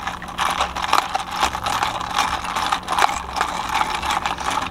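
Plastic straw stirring iced coffee in a lidded plastic cup: ice rattling and scraping against the cup, with the straw rubbing in the lid, as a fast, unbroken clatter.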